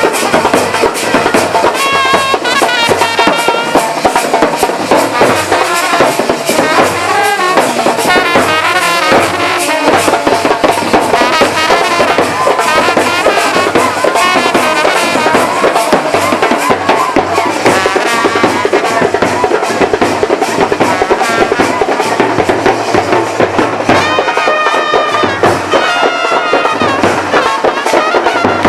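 Loud music with brass instruments playing a wavering melody over steady, rapid drumming.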